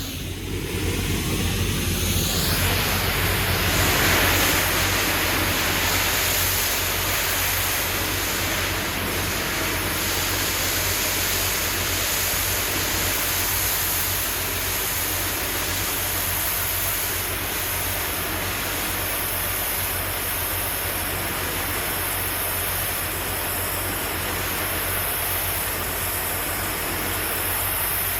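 Pressure washer spraying a steady high-pressure jet of water against precast concrete, with a steady low machine hum underneath. It swells slightly a few seconds in.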